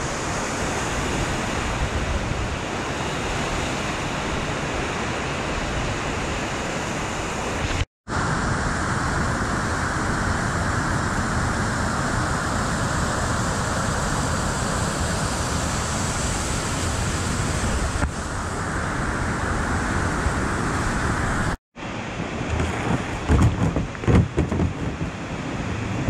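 Rushing whitewater and a waterfall: a loud, steady roar of water, cut off abruptly twice. Near the end come irregular low bumps and knocks.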